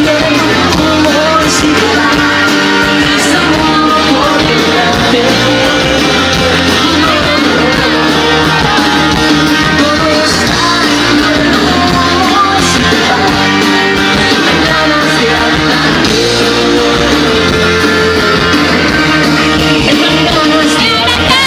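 Live pop-rock band playing loudly: guitars and a sung melody over a steady backing.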